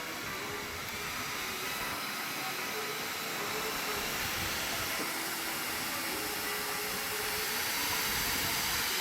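A handheld electric fan running, a steady airy hiss that grows slightly louder toward the end.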